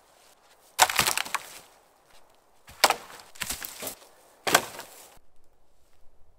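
Dry dead wooden poles thrown onto a woodpile, clattering against the other poles as they land, four times in a row.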